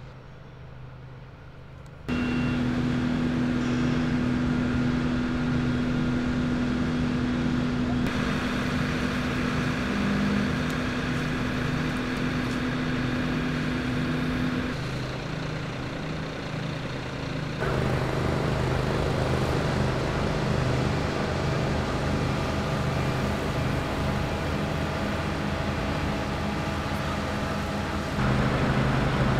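Fire trucks' engines running steadily at a fire scene, a constant pitched drone from engines held at speed to drive pumps and the aerial ladder. The drone starts abruptly about two seconds in and changes character suddenly several times across the shots.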